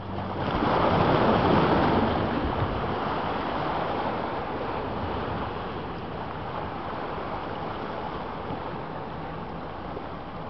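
Small waves washing against a boulder shoreline: one surge swells loudest about a second in, then eases into a steady wash.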